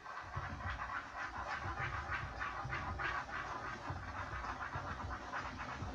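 A stick stirring homemade slime in a container: rhythmic scraping and sticky squishing, about three strokes a second.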